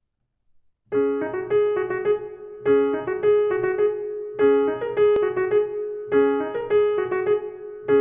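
Solo piano coming in about a second in and playing a short figure over a repeated middle-register note. The phrase starts again roughly every second and three-quarters.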